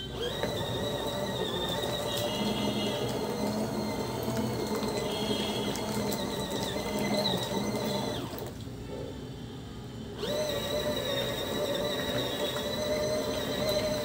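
Small electric motor of a foldable mini washing machine whining as it churns water and clothes. It winds up just after the start, stops for about two seconds a little after eight seconds, then starts again, the stop-start running of the wash cycle.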